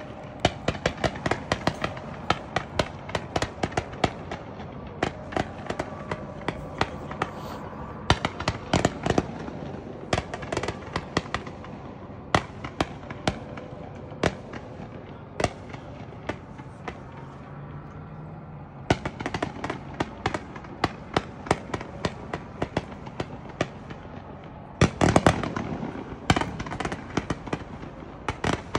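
Consumer fireworks cakes firing: a continuous string of sharp shots and pops from the tubes and bursts, with a louder cluster of bangs about 25 seconds in.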